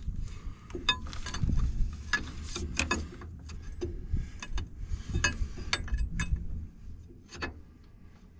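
Irregular metallic clinks, clicks and knocks of hand tools and hydraulic hose fittings being handled, most frequent in the first six seconds and fewer toward the end.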